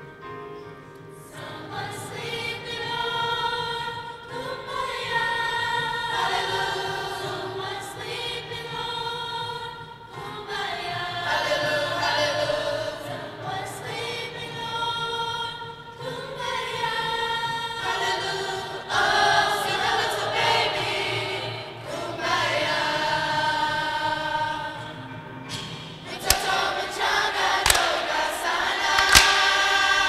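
Middle school choir singing in phrases with short breaths between them. A few sharp knocks come near the end.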